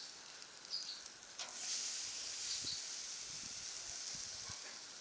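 Giant trevally fillets sizzling in a wire grill basket over charcoal: a faint, steady hiss with a few small crackles, setting in about a second and a half in. A couple of faint bird chirps come near the start.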